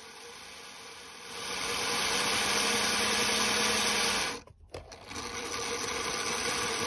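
Tri-ang R52 OO gauge tank locomotive's X04 electric motor and gears whirring as its wheels spin on a test stand. The motor starts about a second in, cuts out about four seconds in, and starts again half a second later.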